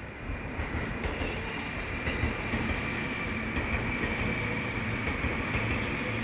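Seibu Line train running past at a level crossing: steady rumble and rolling noise of the wheels on the rails, with a steady high whine above it.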